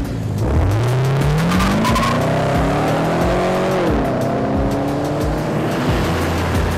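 A 2011 Chevrolet Camaro SS V8 with the resonator replaced by a stainless X-pipe, accelerating hard. The exhaust note rises in pitch for about three seconds, drops near the four-second mark, then runs steadily. A music track with a steady beat plays underneath.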